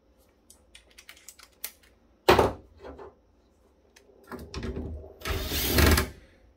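Cordless electric screwdriver being handled: light clicks and a sharp clack about two seconds in, then the motor whirring for about two seconds near the end as it backs out the screws holding a heat sink.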